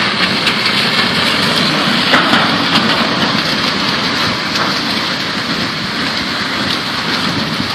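Swollen river in a flash flood, its water rushing in a loud, steady roar with scattered faint knocks.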